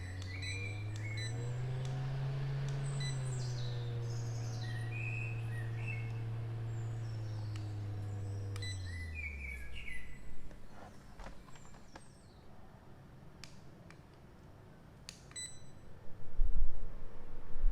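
Xiaomi EDON portable folding fan's motor humming, rising in pitch as its speed is stepped up, then winding down and stopping about nine seconds in. Birds chirp in the background, and a few loud handling thumps come near the end.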